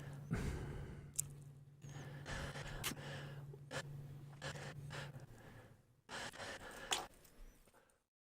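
A man's breaths, sighs and short gasps, left in short clipped fragments, with a low steady hum that stops about five seconds in.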